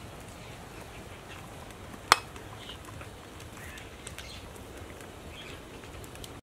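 A metal ladle knocking once, sharply, against a large metal stockpot about two seconds in, with a few light clinks as it dips into the soup.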